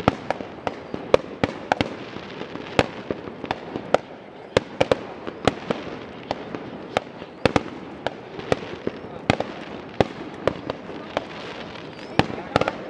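Fireworks going off: a continuous run of sharp bangs and pops at irregular intervals, about two a second, over a steady background rumble and hiss.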